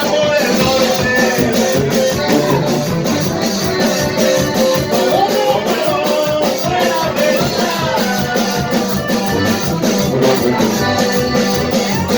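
Banda music playing loudly, with brass melody and singing over a steady drum beat.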